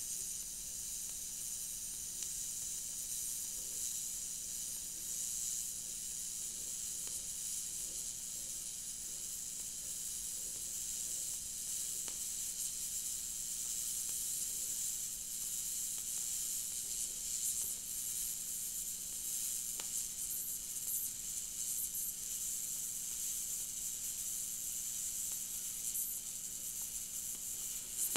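TIG welding arc on stainless steel from a YesWelder TIG 250P at 125 amps with no pulse: a steady high hiss over a low hum. It cuts off right at the end as the arc is stopped.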